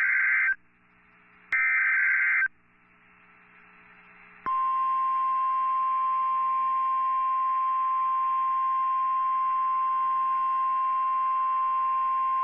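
NOAA Weather Radio SAME alert header: two buzzy one-second bursts of data tones, the last of a set of three, then after a short pause the steady 1050 Hz warning alarm tone, which comes on about four and a half seconds in and signals that a warning, here a tornado warning, is about to be read.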